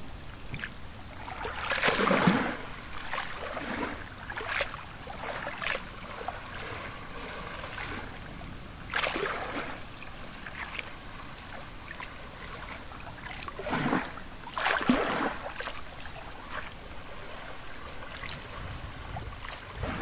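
Small waves lapping and splashing against a reedy lake shore, in irregular surges, the biggest about two seconds in and again around nine and fifteen seconds, over a steady low rumble.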